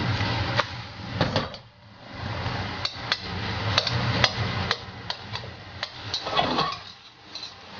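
Metal slotted spatula chopping and tapping against a black wok while breaking up a fried egg-and-greens pancake: sharp clicks two or three a second over the hiss of frying.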